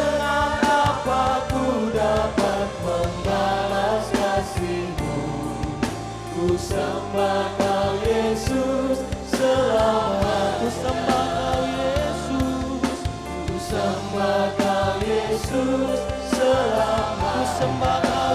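Live church worship music: a band with drums playing under many voices singing a gospel praise song together.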